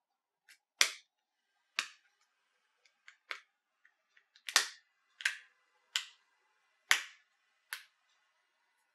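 The back cover of a Nokia Lumia 930 being pried off with a plastic opening tool: a series of sharp snaps, about one a second, as its clips pop free one by one, with fainter clicks between them.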